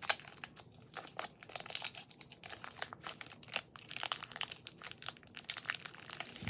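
Foil wrapper of a Pokémon booster pack crinkling, with irregular sharp crackles as fingers work the stubborn pack open.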